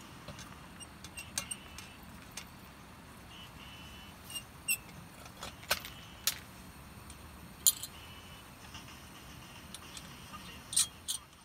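Metal and glass parts of a Coleman lantern clinking as it is handled: its top cap, globe and hanging chain give a dozen or so sharp separate clicks and light jangles, over a steady faint hiss.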